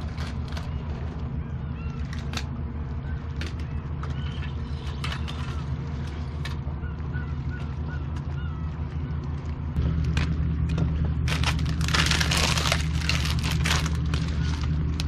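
A steady low motor hum that gets louder about ten seconds in, with faint chirping calls, clicks of gear being handled, and a burst of rustling near the end.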